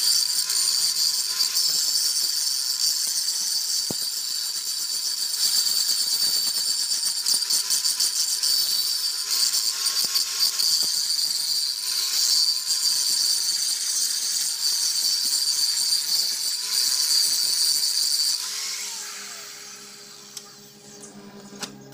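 Electric grinder running against a tractor's cast iron rear axle housing, grinding the metal ahead of stick welding. A steady high whine and hiss, switched off near the end and spinning down.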